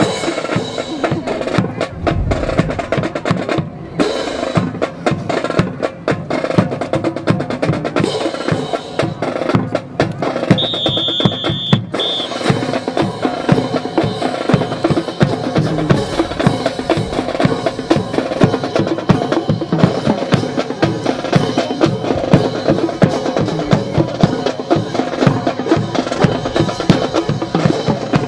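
Marching music carried by snare and bass drums, keeping a steady beat for a drill team marching with rifles.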